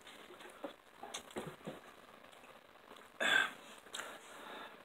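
Soft sounds of a person eating chicken: small clicks and faint chewing, with one short, loud noise about three seconds in.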